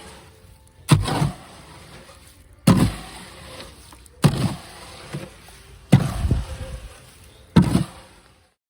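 Five heavy strikes of a digging tool into the ground around a fence post, evenly spaced about a second and a half apart.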